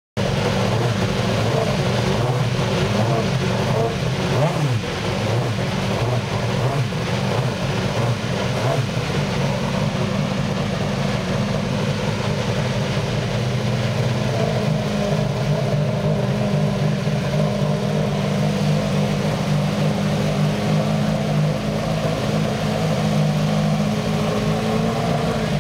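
IndyCar's Honda V8 engine running with the car standing still. It is blipped up and down a few times in the first ten seconds, then holds a steady note.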